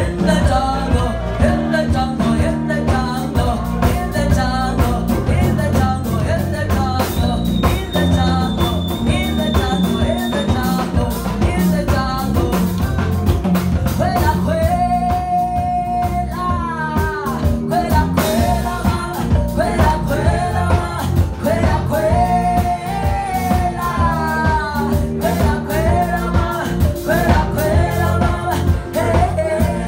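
Zimbabwean marimba band playing live: several wooden marimbas struck over electric bass and drums, with women's voices singing lead and harmony.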